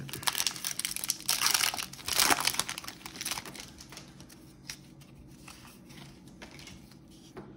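Foil wrapper of a Topps baseball card pack crinkling as it is torn open, loudest over the first three seconds or so, then only faint rustles and ticks.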